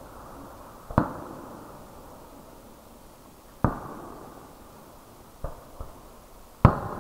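Fireworks going off: three loud bangs, about a second in, near the middle and near the end, with two fainter pops just before the last. Each bang trails off in a long echo.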